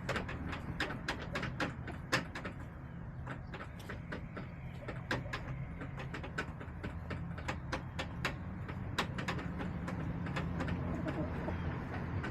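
Chickens pecking at hard plastic surfaces in a coop: a run of sharp, irregular taps, sometimes several in quick succession, over a steady low hum.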